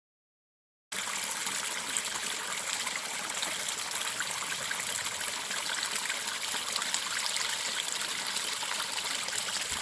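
Steady rushing hiss of running water, starting suddenly about a second in.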